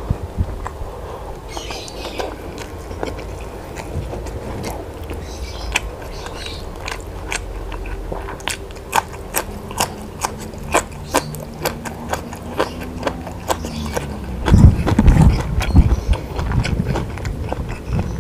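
Close-up eating sounds of a person biting and chewing food. A run of sharp clicks fills the middle, and heavier, louder chewing comes near the end.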